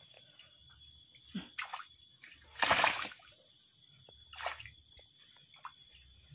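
Water splashing and sloshing in a few short bursts, the loudest about two and a half seconds in.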